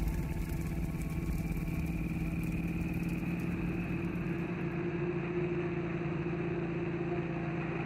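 Harley-Davidson V-Rod's V-twin engine running steadily at road speed while the motorcycle is ridden.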